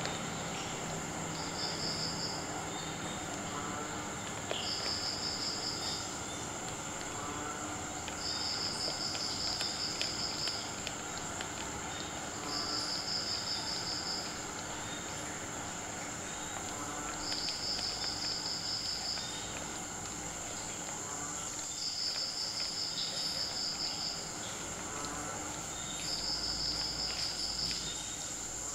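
Crickets trilling: shrill trills lasting one to two seconds, repeated about every four seconds, over a steady high insect whine.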